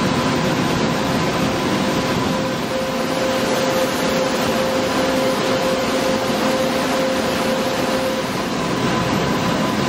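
Röders CNC machining centre grinding under coolant: a steady hum and spray of coolant with a high, even spindle tone. One of the tones drops out about eight seconds in.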